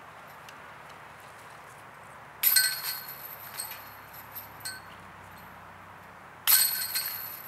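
Two disc golf putts striking the hanging chains of a metal basket, each a sudden clash of chains that jingles and rings as it fades: one about two and a half seconds in and one near the end, with a few small clinks between.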